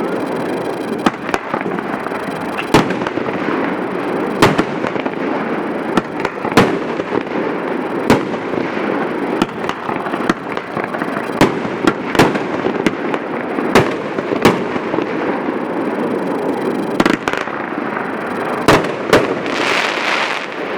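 A multi-shot consumer fireworks cake firing: about fifteen sharp reports, one every second or two, over continuous crackling from the bursting effects.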